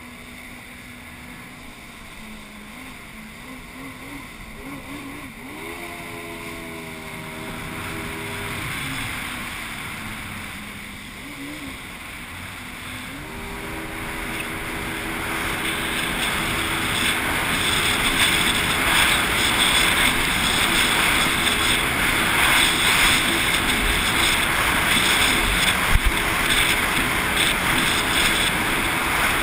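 Yamaha FX HO WaveRunner engine running at low speed, rising in pitch twice and then holding a steady note. From about halfway, a rush of water and wind grows much louder as the craft picks up speed.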